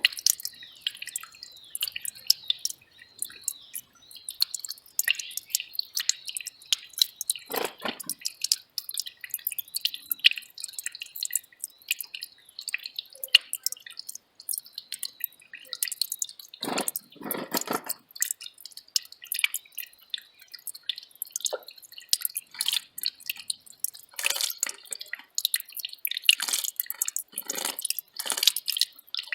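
A small mountain stream trickling and dripping over rocks: a fast, irregular patter of plinks. A few louder gurgles come about 8 and 17 seconds in, and several more near the end.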